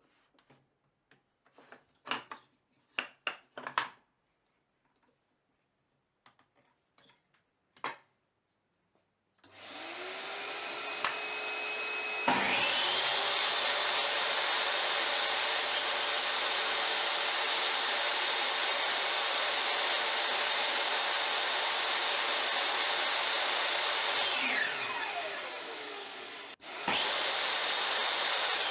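A few knocks of wood being handled, then an electric power tool's motor running: it spins up with a rising whine, runs steadily for about twelve seconds, winds down with a falling whine and starts up again near the end, over a steady machine noise.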